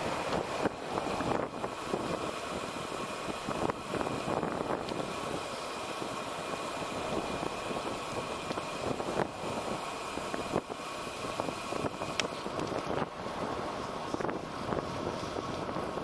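Wind noise rushing over the camera microphone of a moving bicycle, with road traffic passing in the lanes beside it. Irregular short thumps of buffeting break through the rush.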